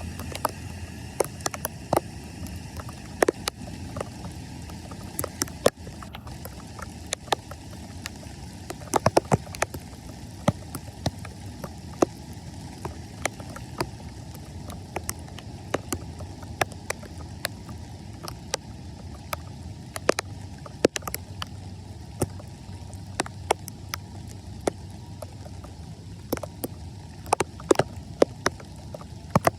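Floodwater running steadily, broken by irregular sharp clicks and knocks throughout.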